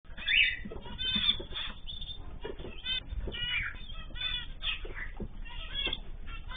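Cage birds calling over one another, a steady stream of short overlapping chirps and squawks.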